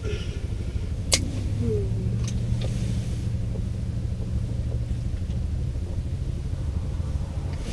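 A steady low hum and rumble, with a few light clicks about one and two seconds in.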